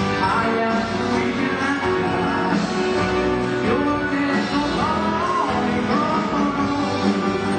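Five-piece rock band playing live with guitars, keyboard and drums, a lead melody line bending between notes above the band.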